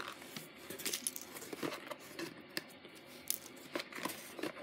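Loose costume jewelry clicking and clinking as pieces of metal and glass are dropped and shifted onto a pile, a scattered run of small light clicks at uneven intervals.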